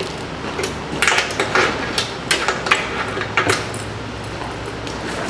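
A heavy tarp rustling and metal strap hooks clinking as a tarp corner is pulled down and hooked to a flatbed trailer's rail, with a burst of sharp clicks and rustles in the middle.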